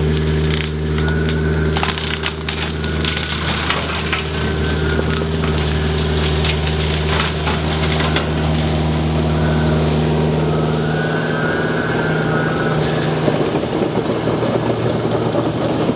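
Cyclone 48-inch open-face rotary brush mower shredding brush and wood, with repeated cracking and splintering over the steady drone of the carrier machine's engine and hydraulics.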